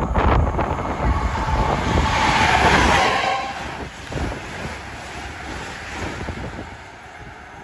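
SJ X2000 electric express train passing along the platform: a loud rumble and rush of wheels and carriages that peaks about two to three seconds in, then dies away with scattered wheel clicks as the last carriages go by.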